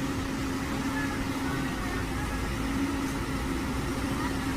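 Heavy machinery engine running steadily, a constant rumble with a steady hum over it.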